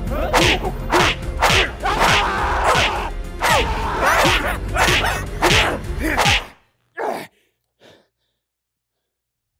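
A rapid barrage of whip-like whooshes and hits, about two a second, each trailed by a falling tone. It cuts off suddenly about six and a half seconds in, leaving near silence broken by one short burst and a fainter one.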